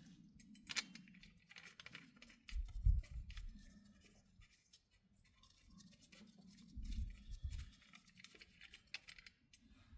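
Faint handling sounds while the ATV's oil level is checked on the dipstick: scattered small clicks and rustles, with low thumps about three seconds in and again about seven seconds in.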